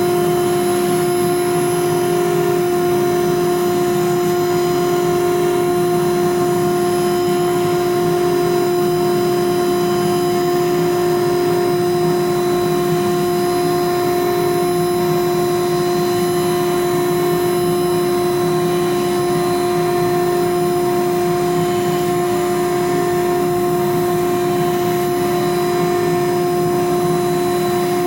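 CNC router spindle running at a steady speed with a constant whine while the bit cuts a plastic sheet, over a steady hiss from the dust extraction.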